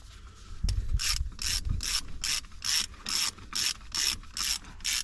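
Ratchet wrench worked back and forth on a bolt of the exhaust bracket, clicking in short even strokes about two and a half times a second, starting about a second in.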